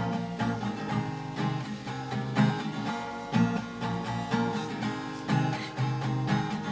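Two acoustic guitars strummed together, playing chords with regular strokes.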